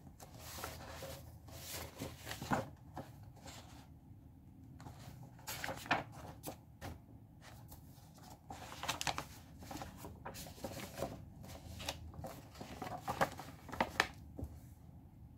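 Paper pages of a workbook being handled and turned by hand: a run of short, scratchy rustles and crinkles with brief pauses between them.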